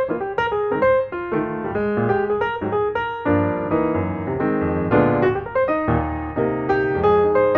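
Background music: piano with a bass line, playing a quick run of notes.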